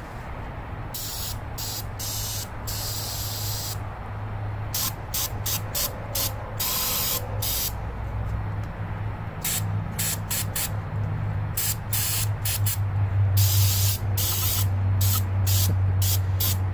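Aerosol carburetor cleaner sprayed onto carburetor parts in many short bursts and a few longer ones, with pauses between them. A steady low hum runs underneath.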